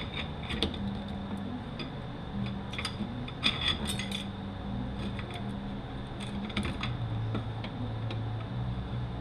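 Scattered light metallic clinks and taps of automatic transmission internals being handled during teardown, with a small cluster of clinks about halfway through, over a steady low hum.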